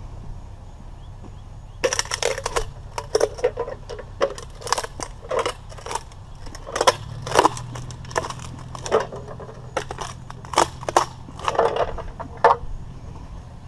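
Scrap metal pieces clanking and rattling as they are handled and loaded, in a rapid irregular run of sharp knocks starting about two seconds in and stopping near the end, over a steady low engine hum.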